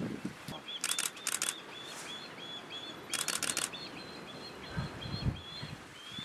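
Osprey fledgling begging for food: a run of short, high chirps repeated about three times a second. Two short bursts of rapid clicking cut in, and a few low thumps come near the end.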